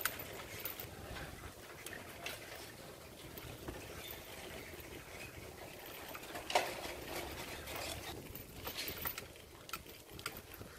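Quiet street ambience with scattered faint clicks and taps, and one louder knock about six and a half seconds in.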